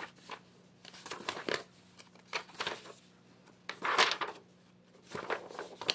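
Sheets of lined notebook paper rustling in several short bursts, the loudest about four seconds in.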